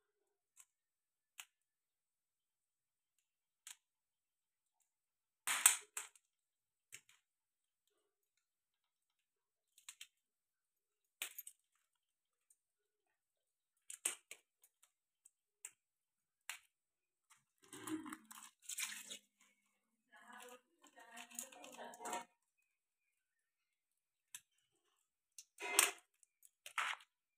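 Sharp cracks and clicks of live crabs' legs and shell being snapped off by hand, a dozen or so scattered and irregular, the loudest about six seconds in. A longer run of crunching and crackling comes in the middle, from about two-thirds of the way through.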